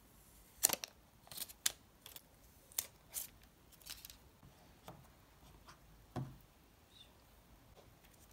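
Small plastic clicks and rustles from a white plug-in power adapter and its charging cable being handled and turned over in the fingers. The clicks are irregular, with the sharpest just under a second in and a duller knock about six seconds in.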